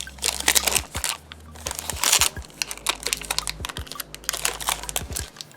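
Foil trading-card pack wrapper crinkling and being torn open, in irregular crackling bursts, loudest about half a second and two seconds in.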